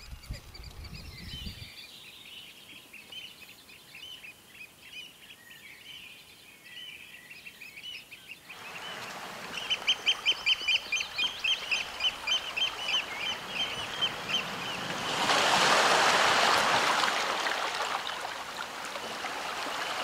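Birds calling over small waves washing on rocks. A busy chatter of high calls comes first, then about ten seconds in a rapid run of loud, high piping calls, and near the end a wave surges over the rocks.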